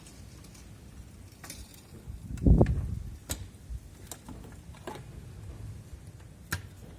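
Car jack being lowered and handled: scattered metal clicks and one louder, low thump about two and a half seconds in.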